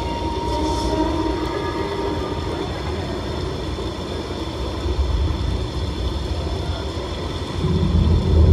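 Dance soundtrack played over the hall's loudspeakers: a steady low rumbling drone with a few faint held tones, swelling louder near the end.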